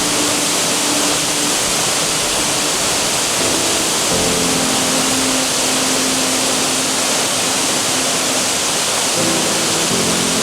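Waterfall falling steadily: a loud, even rush of water. Under it, slow held notes of background music change pitch every few seconds.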